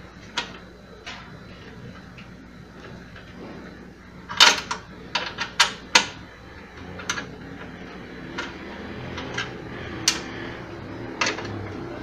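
Sharp metallic clicks and clinks of a wrench and fittings being worked at a washing machine's sheet-metal mounting plate around the agitator shaft. A quick run of loud clicks comes about four to six seconds in, with single clicks scattered through the rest.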